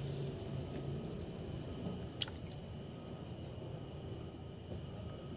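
Night insects trilling steadily in a high-pitched, rapidly pulsing chorus, with a single sharp click about two seconds in.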